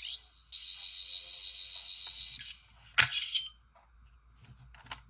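Toy sonic screwdriver's electronic sound effect: a high warbling buzz held for about two seconds, then a sharp click about three seconds in followed by a short chirp.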